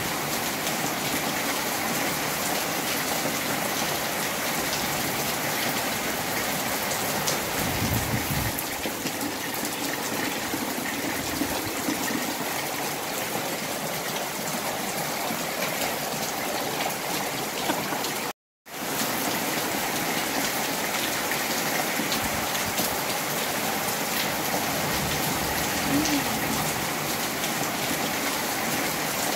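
Steady rain pouring down, an even hiss, broken once, a little past halfway, by a split-second gap of silence.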